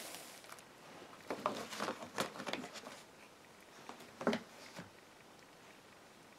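Light taps and crinkles of shrink-wrapped plastic Blu-ray cases being handled and set down on a tablecloth, in a cluster about a second into the sound and once more after about four seconds.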